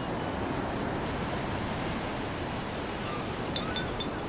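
Sea surf washing in, a steady rushing noise, with a few faint short chirps near the end.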